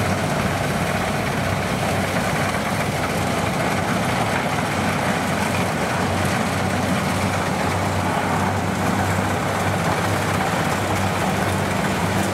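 Kubota combine harvester running steadily at working speed while cutting and threshing rice: an even engine drone with a low hum, over the rushing noise of the header and thresher.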